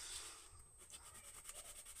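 Faint scratching of a Faber-Castell Polychromos coloured pencil shaded in quick back-and-forth strokes on toned drawing paper, the strokes growing more even near the end.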